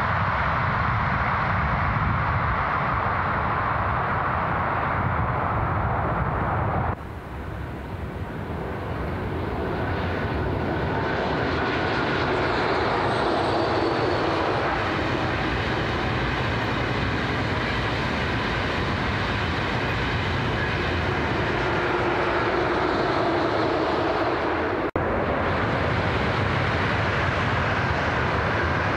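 High-speed ICE trains passing at speed: a steady rushing of wheels on rail and air. It drops suddenly about seven seconds in and swells back as the next train comes by, with a brief break near the end.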